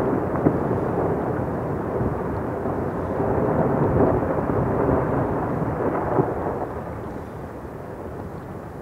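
Avalanche of snow and ice pouring down a rock cliff, a steady rumble that fades away over the last two seconds.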